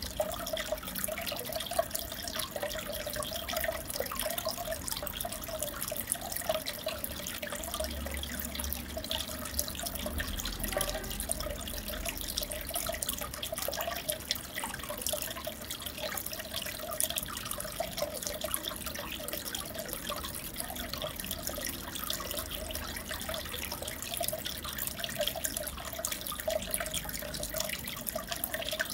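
Aquarium water bubbling and trickling steadily, with a dense patter of small bubble pops and splashes.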